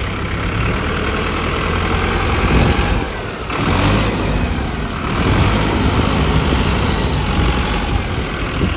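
Mahindra Arjun Novo 655 DI tractor's four-cylinder diesel engine running at idle, swelling louder a couple of times.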